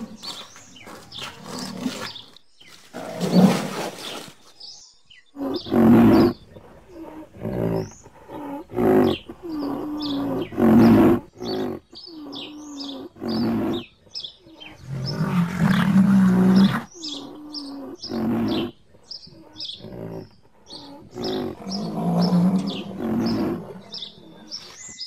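Rhinoceros calling: a series of short, low calls with two longer ones in the second half, while small birds chirp in the background.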